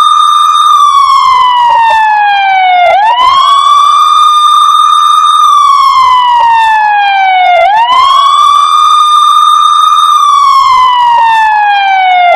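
Police siren wailing: each cycle rises quickly in pitch, holds high for a second or two, then slides slowly down, and starts again about every four and a half seconds.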